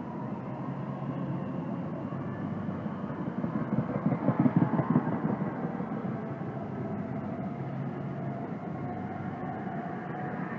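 Electric passenger train of stainless-steel cars passing close by at speed, its wheels rumbling on the rails. The sound swells to its loudest with a rapid clatter about four to five seconds in, then settles back to a steady rumble.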